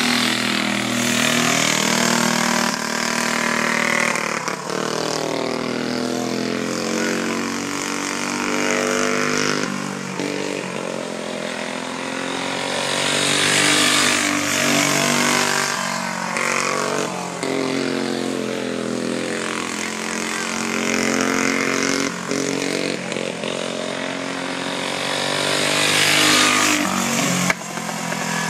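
Racing go-kart's small single-cylinder engine running hard as it laps a dirt oval, its pitch rising and falling again and again as the driver gets on and off the throttle through the turns, loudest as it passes close by.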